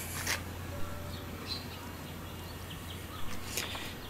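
Quiet outdoor background: a steady low hum with a few faint bird chirps and some light knocks.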